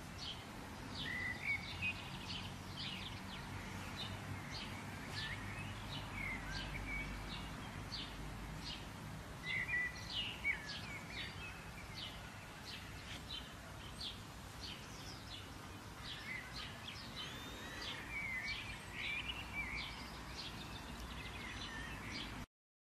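Several songbirds chirping and calling in quick, scattered notes over a steady low outdoor rumble. It stops abruptly near the end.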